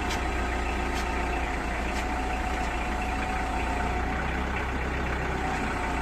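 Tractor engine running steadily at an even, idle-like speed, with a steady whine above the engine hum and a few faint ticks in the first two seconds.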